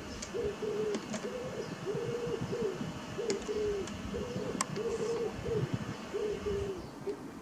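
A pigeon cooing over and over in a steady rhythm, about two notes a second, over a steady distant rush of jet noise from the Boeing 777 freighter passing overhead that thins near the end. A few faint high chirps and light clicks come through.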